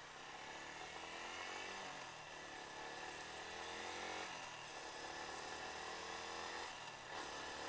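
Yamaha Y15ZR's single-cylinder engine accelerating, its pitch rising three times and dropping at each gear change, with wind rushing over the helmet. The owner says its clutch plates are worn out, so the engine revs high while the speed lags.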